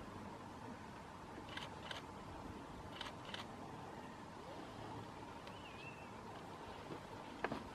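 Quiet outdoor ambience broken by two pairs of sharp clicks, about a second and a half and three seconds in, and a short wavering whistled bird note about six seconds in.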